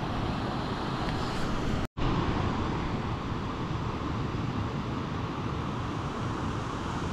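Steady rushing of flowing river water. It cuts out for an instant about two seconds in.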